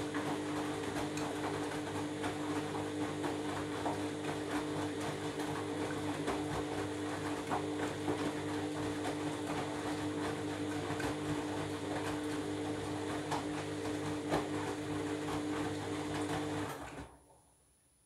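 Candy front-loading washing machine spinning a load of bathrobes: a steady motor whine over crackling noise from the drum, which cuts off abruptly about 17 seconds in as the motor stops.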